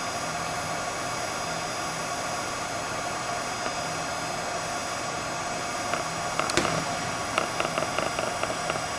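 Steady ventilation hum filling a large, empty indoor arena. About six and a half seconds in, a single sharp thud of a football being kicked off a tee, followed by a short run of light ticks.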